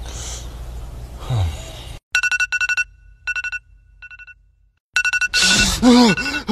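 iPhone alarm going off: a rapid pulsing two-tone beep starts about two seconds in, pauses briefly, and comes back louder. Near the end a person's sleepy groaning voice rises and falls over it.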